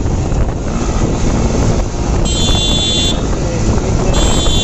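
Motorcycle riding noise with wind buffeting the helmet microphone, and a high-pitched vehicle horn sounding twice, about two seconds in and again near the end.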